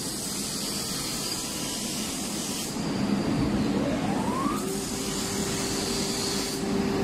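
Rubber-belt crawler shot blasting machine running, a steady mechanical hum with hiss. About four seconds in, a motor whine rises in pitch and then holds steady.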